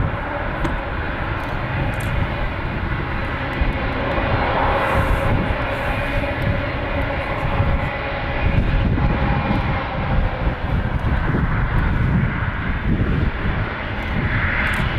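Jet airliner engines running: a loud, steady rumble with faint whining tones above it.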